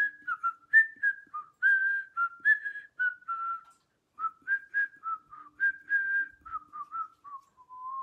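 A simple tune whistled in short, clean notes, about two or three a second. It breaks off briefly just before the middle, and the last notes slide downward.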